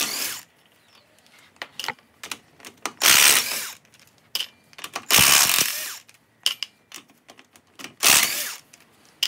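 DeWalt XR cordless impact wrench with a 17mm socket hammering car wheel nuts loose. It runs in four short bursts, the middle two the longest, with sharp clicks between them.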